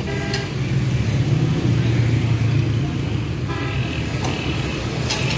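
Street traffic: a steady low engine hum, with two short vehicle horn toots, one at the start and another about three and a half seconds in.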